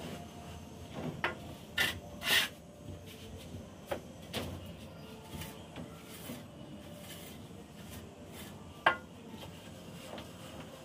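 Hand plastering tool scraping and rubbing fresh cement plaster on a concrete ceiling during finishing, in a few short, irregular strokes. The sharpest come about two seconds in and near the end.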